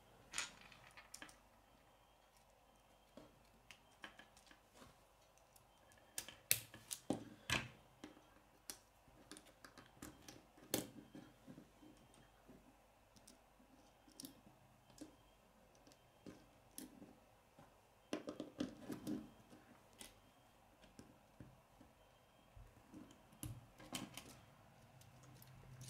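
Faint scattered clicks and taps of plastic K'nex rods, connectors and wheels being snapped together and handled on a wooden tabletop, coming a few at a time with quiet stretches between.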